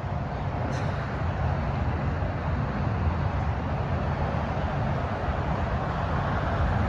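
Strong wind blowing against the microphone: a steady, heavy low rumble with a rushing hiss above it.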